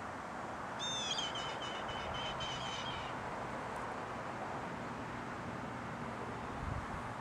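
A bird's high, thin, whistled call, sliding down at first and then wavering, lasting about two seconds from about a second in, over steady outdoor background noise. A soft low thump comes near the end.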